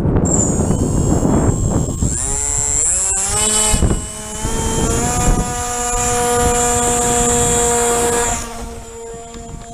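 Small RC plane's brushless electric motor and propeller whining up in pitch as the throttle is opened a couple of seconds in, then holding a steady high whine before it falls away near the end.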